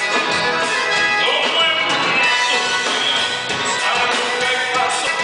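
Gaúcho dance-band music led by accordion, playing continuously with dense held chords.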